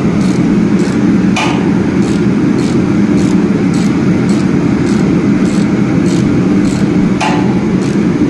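Socket ratchet wrench clicking in short bursts, roughly two a second, as pump mounting bolts are tightened, over a loud steady low hum. Two louder metal clinks come about a second and a half in and again near the end.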